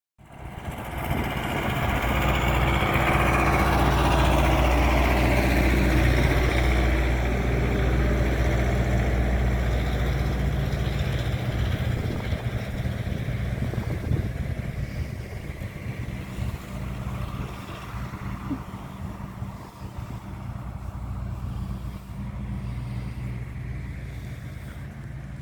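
A motor vehicle's engine runs close by with a deep, steady hum. It is loudest in the first half and slowly fades as it moves off.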